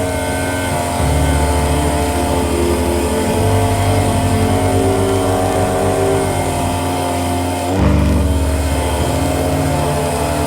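Background music: sustained synth tones over a bass line that steps between notes every second or two, with a brief sweep near the end.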